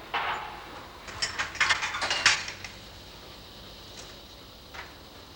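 A quick run of light metallic clinks and rattles in the first three seconds, then a couple of faint single clicks later on.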